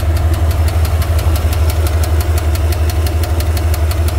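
Carbureted pickup truck engine idling with a fast, steady ticking, about six or seven ticks a second. The owner suspects a loose connecting rod, having earlier likened it to a sticking lifter.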